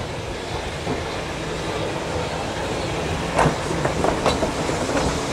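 Metropolitan Electric Tramways car 331, a double-deck electric tram, rolling past at low speed: a steady rumble of its wheels on the rails, with a few sharp clacks about three and a half to four and a half seconds in.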